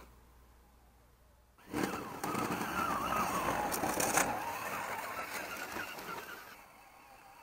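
MST CMX radio-controlled crawler's electric motor and gear drive running as the truck pushes through snow close by, with its tyres churning the snow. It starts suddenly about two seconds in, is loudest in the middle and fades away near the end.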